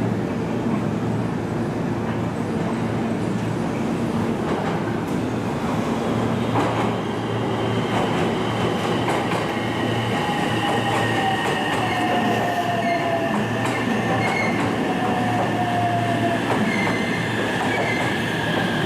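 Train running at a station platform, with a steady high wheel squeal from about seven seconds in and a whine that slowly falls in pitch.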